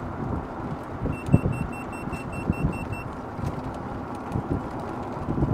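A dash-mounted GPS speedometer gives its speed alert, a rapid run of about ten short high beeps lasting about two seconds, as the golf cart reaches its 15 mph alert setting. Under it runs the wind and road noise of the moving cart, with a knock from a bump just after the beeps begin.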